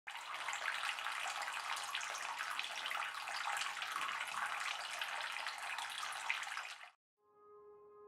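Water from a cement tabletop waterfall fountain pouring from bowl to bowl and splashing into the basin: a steady trickle and splash that cuts off about seven seconds in. A few faint, soft musical tones follow near the end.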